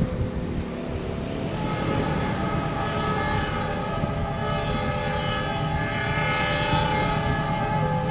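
Approaching train sounding a long, steady, multi-tone horn blast that starts about one and a half seconds in and holds, over the low rumble of the train. It is a warning blast to someone crossing the tracks.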